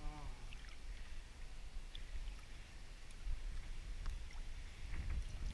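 Swimming-pool water lapping and splashing right at the microphone, with a steady low rumble and scattered small drips and clicks. A brief voice sound with a slightly falling pitch comes at the very start.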